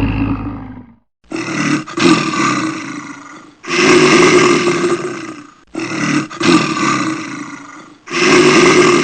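A large animal roaring: four long, harsh calls about two seconds apart, each starting loud and fading away.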